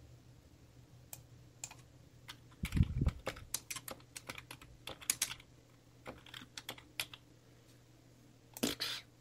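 Irregular keystrokes on a computer keyboard, with a dull thump about three seconds in.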